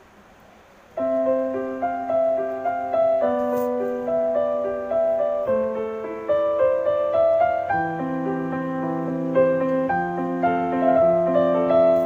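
Background piano music. After a quiet first second, a piano piece starts abruptly, with held notes and chords that change every second or so.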